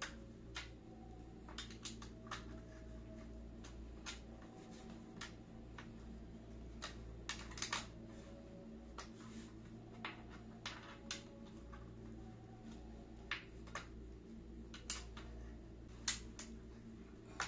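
Light, irregular clicks and taps of hard plastic office-chair parts being handled and fitted by hand, over a steady low hum.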